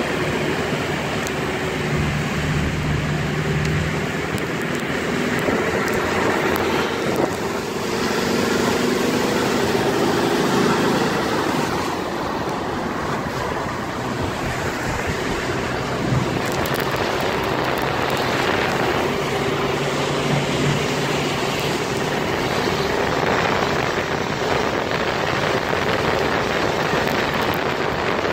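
Steady rush of heavy rain and wind, with a vehicle's engine drone underneath that shifts a little in pitch now and then.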